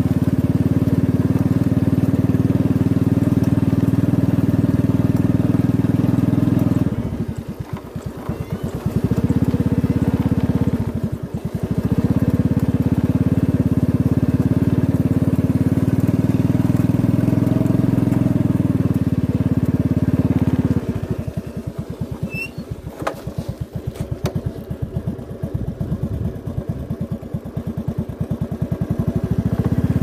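Motorcycle engine running steadily under way, easing off briefly about a third of the way in, then dropping to a lower, pulsing idle for most of the last ten seconds, with two sharp clicks in it, before picking up again at the very end.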